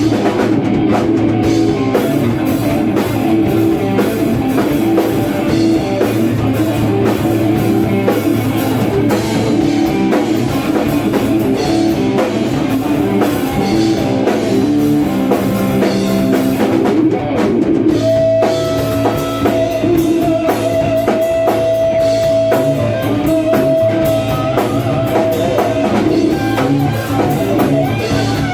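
Electric guitar playing rock over a drum kit. About halfway through, one guitar note is held for several seconds.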